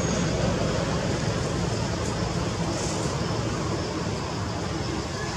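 Steady low outdoor rumble with a hiss above it, with two faint brief high sounds about two and three seconds in. No monkey calls stand out.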